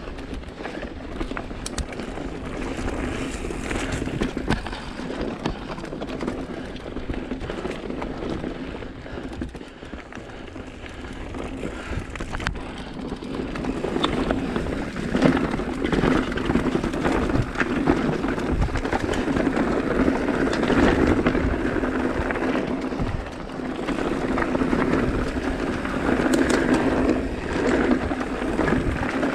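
Mountain bike being ridden up a rocky dirt trail: tyres rolling over dirt and rock with the rattle of the bike, and wind on the microphone. It grows louder about halfway through.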